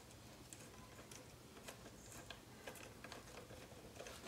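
Faint, irregular small metallic clicks and ticks of bolts being started by hand into an outboard's fuel rail, not yet tightened.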